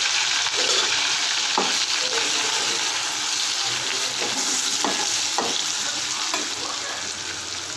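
Chopped onions sizzling in hot oil with whole spices in a pan, stirred with a spatula that knocks and scrapes against the pan a few times. The sizzle gradually gets quieter.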